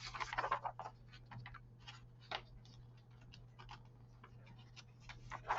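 Scattered light clicks and paper rustles of a plastic model kit's instruction booklet being handled and its pages turned, over a faint steady low hum.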